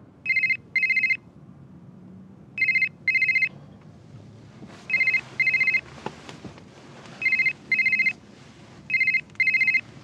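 Mobile phone ringing with a trilling double-ring tone: five double rings, about two seconds apart.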